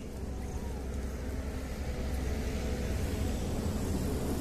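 A motor vehicle's engine running with a low rumble that grows steadily louder, as of a vehicle drawing near.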